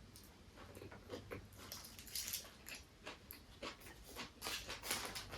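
Close-miked eating sounds: a person chewing a bite of peri peri chicken shawarma roll, a string of soft, short, irregular mouth noises.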